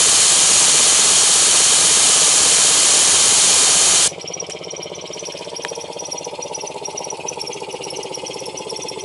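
Vintage belt-driven air compressor, a cast-iron pump run by a 3/4 HP General Electric motor, running with a loud hiss. About four seconds in, the hiss cuts off suddenly and the compressor goes on running more quietly, with a fast, even pulse.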